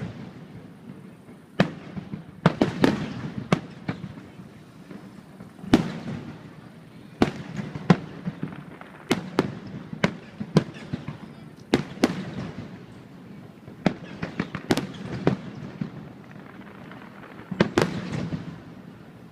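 Aerial fireworks shells bursting: a long run of sharp bangs at uneven intervals, some coming in quick clusters with a short rumbling tail after them.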